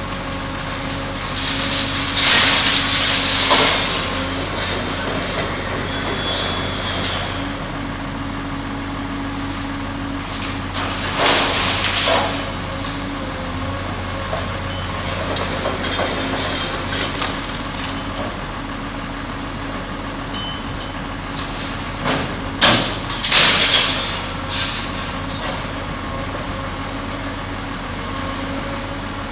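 A wheeled excavator's diesel engine runs steadily while its grab tears down steel-framed glasshouses. Several bursts of crashing, clattering metal and glass come through, the loudest near the start and near the end.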